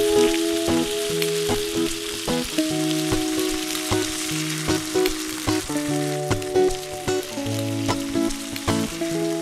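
Thin pork slices sizzling steadily in a nonstick frying pan as they are turned over with silicone tongs, with frequent short clicks as the tongs touch the pan. Background music with held notes plays over the sizzle.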